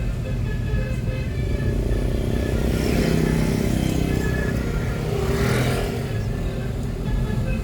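Road traffic: a vehicle engine runs steadily, and other vehicles swish past about three seconds in and again at five and a half seconds.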